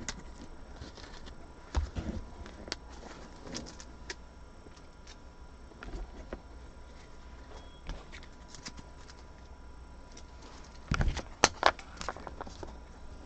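Trading cards and packaging being handled on a table: scattered light clicks and taps, with a cluster of louder knocks about eleven seconds in.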